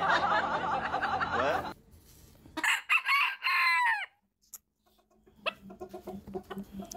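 Rooster crowing, a long wavering call that cuts off sharply under two seconds in, followed by a few short calls around the three-second mark.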